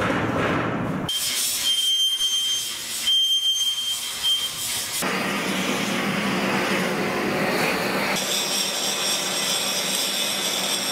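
Steady hiss of an oxy-fuel torch working steel, with a thin high whistle in places. The sound changes abruptly a few times.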